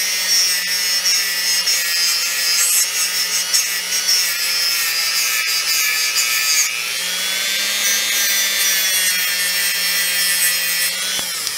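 Dremel rotary tool running a small brush wheel lightly against the metal top cap of an 807 vacuum tube to clean oxidation off it. The motor makes a steady high whine over a scratchy rubbing hiss. The pitch sags and recovers about two-thirds of the way through, and the tool stops just before the end.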